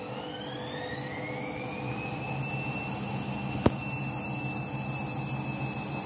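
Candy front-loading washing machine on its final spin, set to 1600 rpm: the motor's whine rises in pitch as the drum speeds up, then holds steady from about halfway, over a low hum. A single sharp click a little past halfway.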